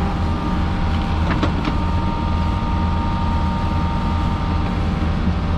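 Takeuchi TB160C midi excavator's diesel engine running steadily, with a steady whine above the low rumble. Two sharp clicks come about a second and a half in.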